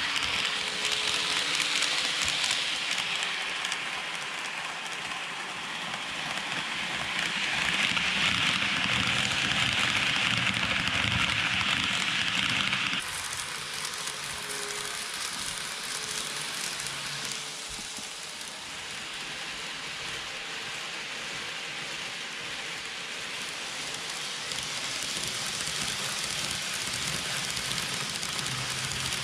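N gauge model train running on its track: a steady rolling hiss of small wheels on rail that swells as the train passes close, then drops suddenly about thirteen seconds in.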